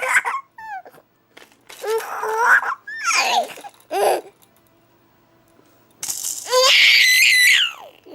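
High-pitched laughter in several short fits with pauses between, like a baby or small child laughing.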